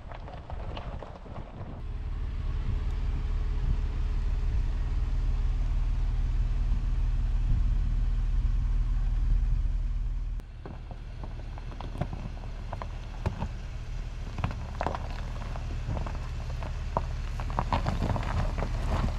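Car driving, heard from inside: a steady low engine and road rumble, with a sudden change near the middle and scattered knocks and rattles in the second half.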